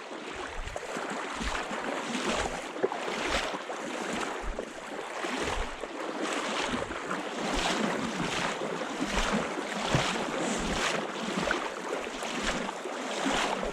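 Footsteps wading through shallow creek water, a splashing slosh about twice a second over a steady wash of moving water.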